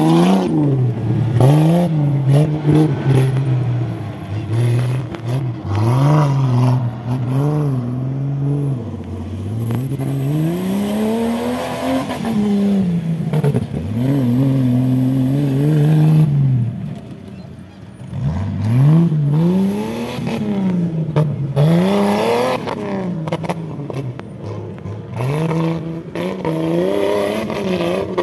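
Off-road buggy's engine revving up and dropping back again and again under load as it drives through mud and over dirt mounds, its pitch rising and falling every few seconds.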